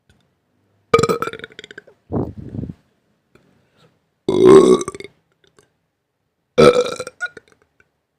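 Four separate burps with short silences between them, the third one, about halfway through, the loudest.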